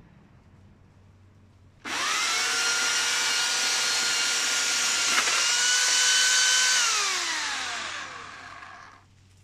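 Corded electric chainsaw's motor switching on abruptly about two seconds in and running at a steady high whine, with a brief catch about halfway. It then coasts down in a falling whine and stops near the end.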